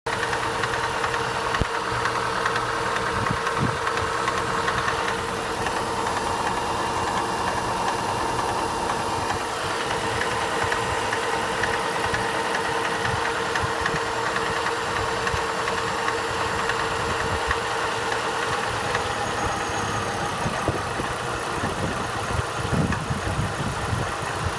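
Opel Astra H engine idling from a cold start, with a rapid knocking under its steady running: the knock that appears when the engine is cold.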